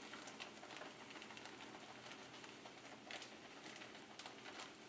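Faint pattering and light scattered ticks from a skillet of cream sauce on a gas burner as grated Parmesan cheese is shaken into it.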